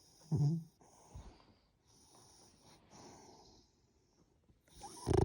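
Dog snoring: a loud snore about half a second in and another, the loudest, near the end, with softer breaths between.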